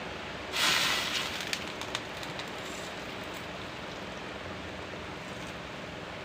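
A sudden loud hiss about half a second in that fades over a couple of seconds with scattered crackles, over a steady background noise.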